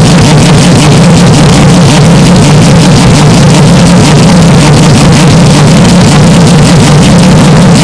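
Historic Formula 1 car engine sound, deliberately overdriven and clipped into a harsh, loud distortion: a steady drone that holds one pitch with a fast flutter, with no rise or fall of a pass-by.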